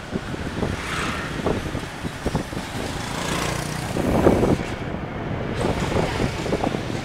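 Street traffic and wind rushing over the microphone while riding pillion on a moving motorbike taxi, with a louder swell about four seconds in.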